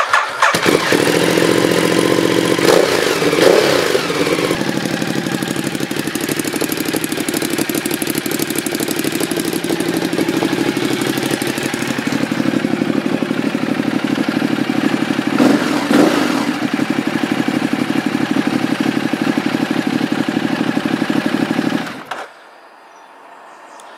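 Ducati Multistrada 1200S's 1198 cc L-twin, fitted with a de-catted Mivv exhaust, catching and being revved several times, then settling into a steady idle with one short blip of the throttle about two-thirds of the way through. The engine is cut off suddenly with the kill switch near the end.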